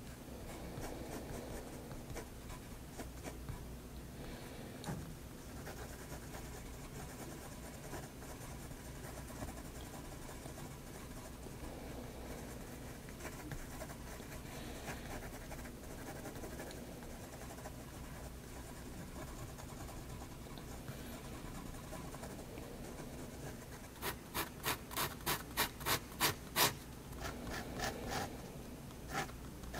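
Staedtler 0.3 mm pigment liner scratching on sketchbook paper in soft, small scribbling strokes. Near the end comes a run of about a dozen quick, louder pen strokes, about four a second.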